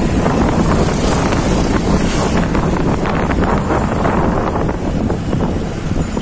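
Heavy wind buffeting the microphone while moving along a road, with vehicle running and road noise underneath.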